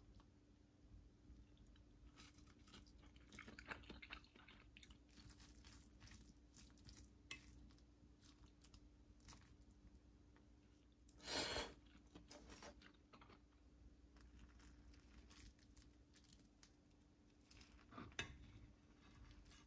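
Faint eating sounds: a person chewing, with some crunching. There are scattered small clicks throughout, one louder short noise about eleven seconds in, and another near the end.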